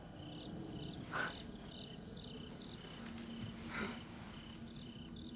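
Faint insect chirping: short high chirps repeating in an even pattern. Two soft brief sounds come about one second and four seconds in.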